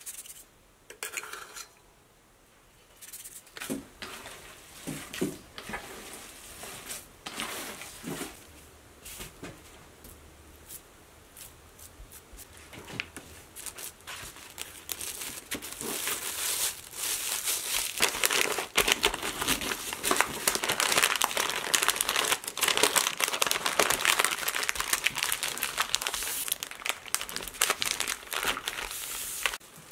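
Plastic cling wrap and white wrapping paper crinkling and rustling as hands wrap a one-pound package of ground pork sausage. It starts as scattered handling noises and becomes busier and louder from about halfway through.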